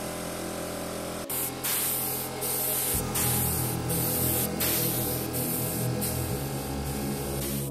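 A hiss of spraying that cuts out briefly several times, over background electronic music.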